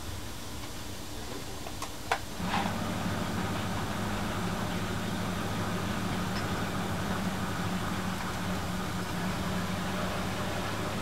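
A few light clicks of a screwdriver on the carburetor's cover plate screws about two seconds in, one of them sharp. Just after, a steady machine hum with a low drone comes on and keeps running.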